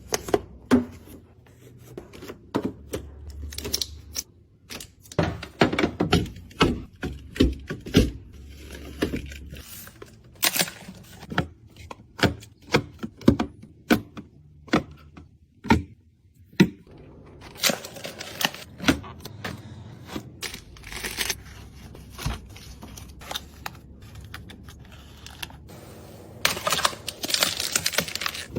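Packaged snacks and containers being handled and set down one after another: many light clicks and knocks of plastic, with short stretches of packaging crinkling, the longest near the end.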